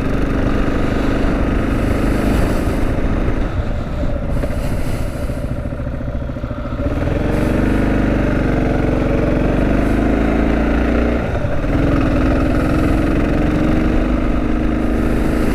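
Kawasaki KLR650's single-cylinder engine running under way, mixed with a steady rush of wind and road noise. The engine note eases off from about four seconds in and picks up again around seven seconds, with a brief dip about eleven seconds in.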